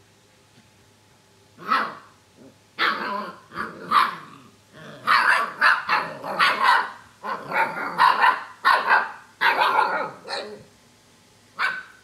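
Alaskan Malamute puppies barking and growling as they play-fight: a single bark about a second and a half in, then a rapid string of loud yappy barks and growls, and one last bark near the end.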